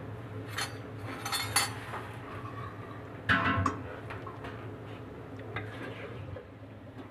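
Steel spatula and fork scraping and clinking on a flat griddle (tawa) as a cooked omelette is lifted off. There are a few short scrapes and clinks, the loudest about three seconds in, over a low steady hum.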